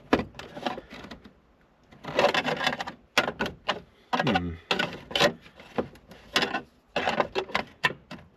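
Irregular clicks, taps and knocks with short rasping scrapes: metal parts and hand tools being worked on a car's accelerator pedal bracket.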